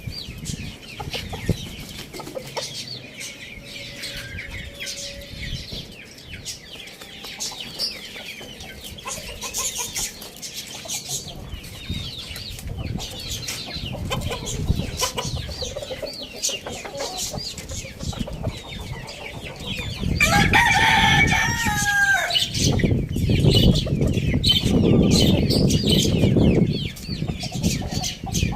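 Chickens clucking and chirping, with a rooster crowing once about two-thirds of the way through. A few seconds of loud rustling follow.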